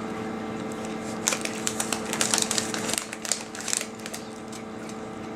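A run of short, crisp crackles and crunches from a small crunchy chocolate-filled Pucca biscuit snack, starting about a second in and dying away near the end.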